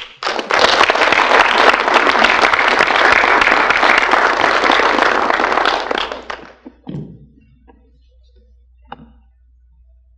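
Audience applauding for about six seconds before dying away, followed by a couple of soft thumps.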